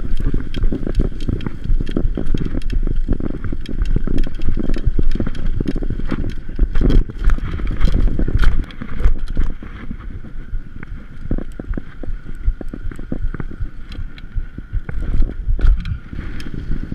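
Wind buffeting the microphone of a camera riding on a mountain bike, with the bike rattling and knocking over a rough dirt track. About halfway through it turns quieter and smoother as the ride continues on paved path.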